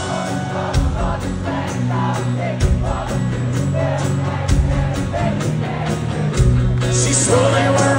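Live country-rock concert music: a full band with amplified singing, and heavy low bass hits about every two seconds.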